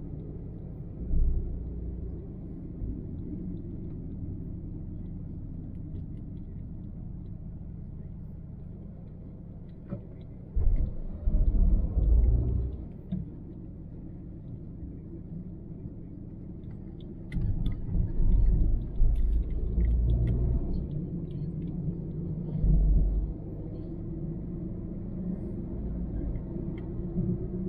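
Car driving on a city road: a steady low rumble of engine and tyres, with several louder low surges of rumble that come and go, the longest in the middle and about two-thirds of the way through.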